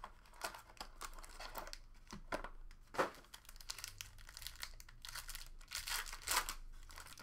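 Foil wrapper of a trading-card pack crinkling and tearing as it is ripped open by hand, with a sharp snap about three seconds in.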